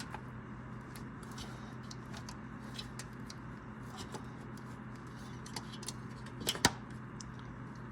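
Oil filter wrench turning the old oil filter loose: faint scattered clicks and scrapes, with one sharper click about six and a half seconds in, over a steady low hum.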